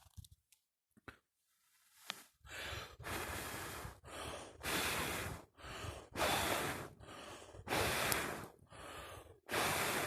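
Someone blowing repeatedly on a struggling campfire to get it to catch: a series of about nine breathy puffs, roughly one a second, beginning about two seconds in.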